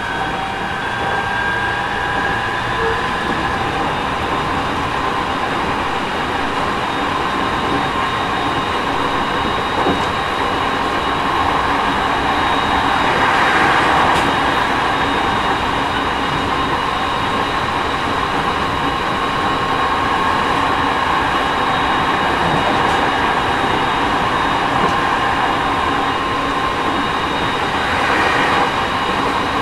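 Running sound inside a JR East 209 series 3000-subseries electric train, from motor car MoHa 208-3002 with GTO VVVF inverter control. The wheels rumble on the rails under steady whining tones, swelling to a louder rush about 13 seconds in and a smaller swell near the end.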